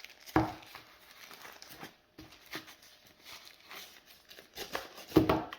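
Hands handling a pair of lithium-ion glove battery packs and their packaging: crinkling and rustling with scattered small clicks, and two louder knocks, one about half a second in and one near the end.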